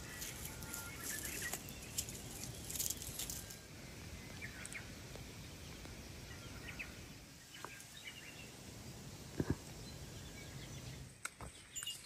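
Faint mountain outdoor ambience with a low rumble, a few short bird chirps, and two sharp knocks about nine and a half seconds in.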